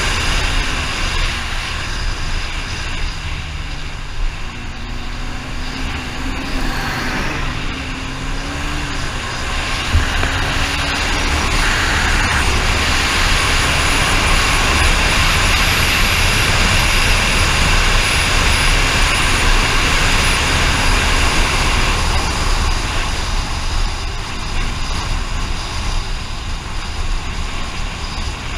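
A vehicle travelling along a road, with heavy wind rumble on the microphone. A faint engine note rises and falls a few seconds in.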